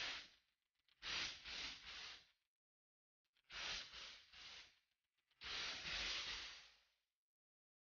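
Three breathy, hiss-like bursts, each a little over a second long, with dead silence between them.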